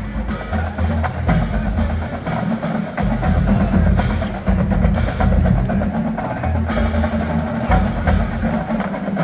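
College marching band playing: quick percussion strokes, clicks and drum hits over low held brass notes.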